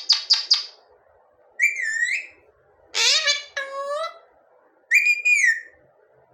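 Pet parrot vocalising: a quick run of about five short chirps, then three whistled calls a second or so apart, the middle one longest with a bending pitch.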